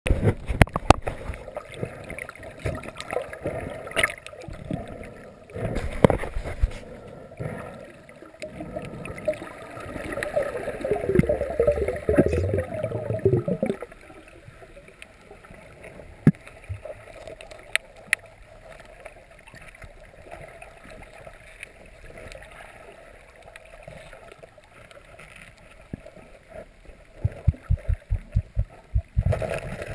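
Underwater sound from a camera in the water: a muffled wash of moving water scattered with sharp clicks and knocks. There is a louder, low rushing stretch about ten to fourteen seconds in, and a quick run of sharp clicks near the end.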